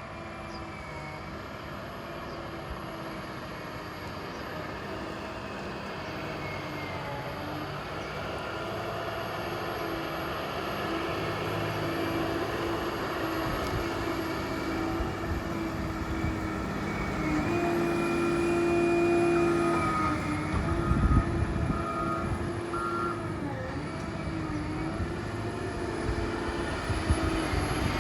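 Heavy diesel equipment running and drawing closer, its engine drone growing louder, with a backup alarm beeping in short pulses about two-thirds of the way through and a heavy low rumble at about the same time.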